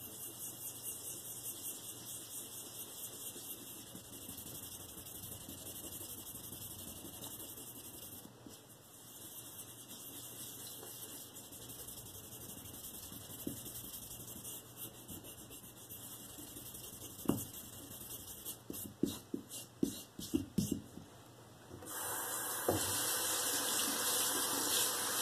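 A pink rubber eraser scrubs Bar Keepers Friend paste back and forth across a Spyderco ceramic bench stone, making a steady gritty rubbing. A few light knocks follow. Near the end a water tap runs steadily, rinsing the stone.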